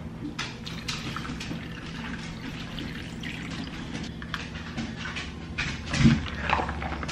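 Coffee poured from a glass mug over ice in a plastic cup, with liquid sounds and small clicks of ice. About six seconds in comes a louder knock as a plastic lid is pressed onto the cup.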